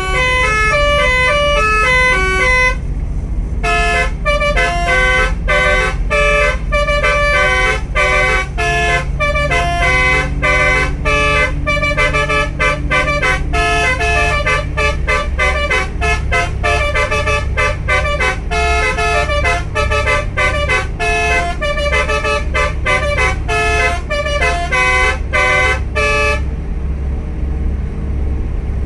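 Basuri telolet bus horn playing a fast melody of short notes over the steady low rumble of the bus engine. The tune stops near the end.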